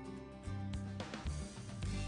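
Instrumental background music with held notes.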